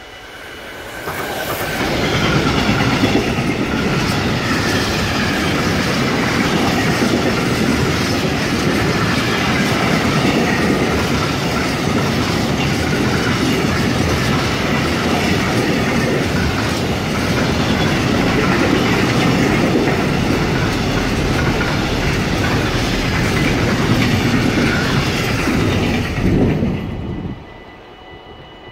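A container freight train hauled by an electric locomotive passing on the track: a steady rumble and clatter of wheels on rails. It builds up over the first two seconds, holds loud and steady through the long line of wagons, and drops away suddenly near the end as the last wagon passes.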